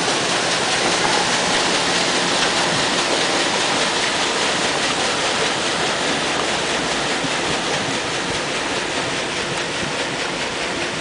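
Stern paddle wheel of a tourist boat churning the lake water as the boat moves off: a steady rushing wash that slowly fades.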